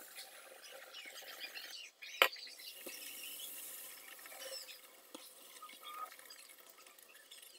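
Hot oil sizzling and crackling around a palak puri deep-frying in a shallow pan, with the metal slotted spoon scraping and tapping against it. A single sharp metallic clink about two seconds in is the loudest sound, and a few lighter taps follow.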